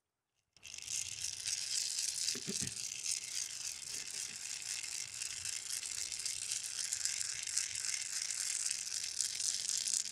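A hand rattle shaken steadily and fast, a dry continuous shushing that starts about half a second in, keeping time as the lead-in to a song.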